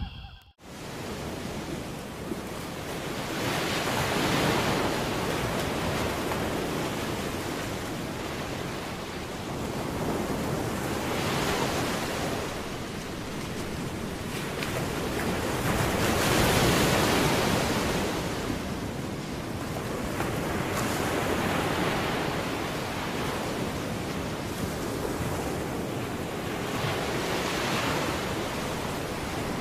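Ocean surf: waves breaking and washing in, swelling and fading every five to seven seconds. The sound starts suddenly about half a second in.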